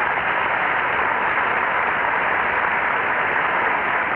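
Studio audience applauding, a steady dense clapping.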